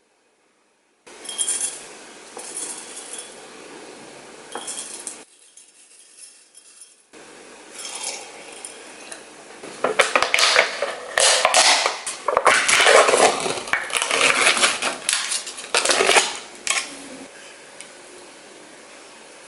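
Dishes and cutlery clinking and clattering in a few short, abruptly cut segments, with the busiest run of clinks in the second half.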